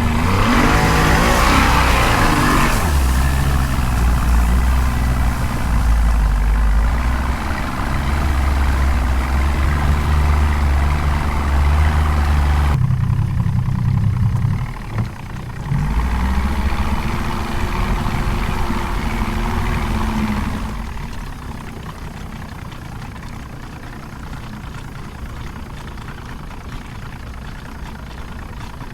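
A motor engine running, its pitch climbing over the first couple of seconds as it speeds up, then holding steady; about three-quarters of the way through it drops to a quieter, lower running level.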